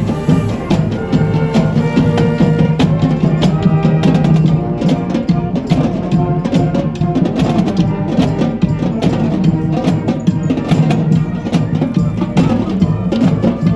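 Music with drums and percussion keeping a steady beat.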